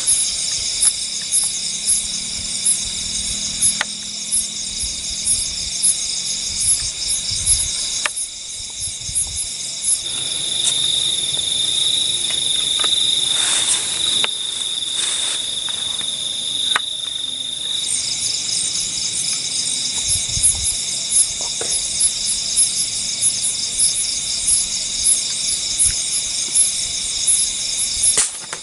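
Night insect chorus of crickets: a dense, steady high trill that pulses in a regular rhythm, with a louder steady buzzing trill joining in from about ten seconds in and stopping at about eighteen seconds.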